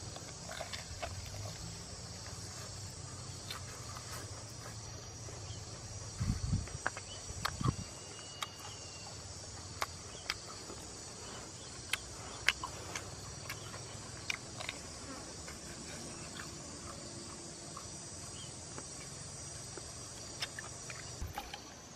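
Steady high-pitched insect chorus, with scattered sharp clicks and smacks from someone biting, tearing and chewing grilled crocodile meat off a bamboo skewer. The insect hum cuts off shortly before the end.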